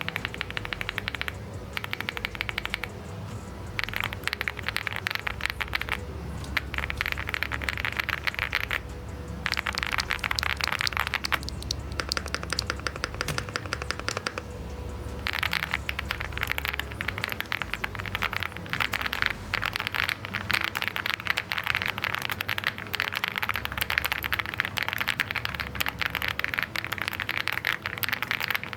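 Fast typing on a mechanical keyboard fitted with Kailh Lunar switches: dense, rapid key clacks in runs of a few seconds, with brief pauses between them.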